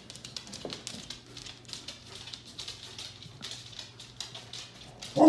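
Wolfdogs' claws clicking and pattering on a hardwood floor as they walk about. Near the end, one of them suddenly starts a loud howling call.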